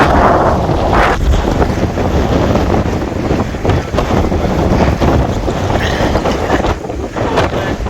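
Wind buffeting the microphone outdoors by open water, a loud, steady, rumbling roar.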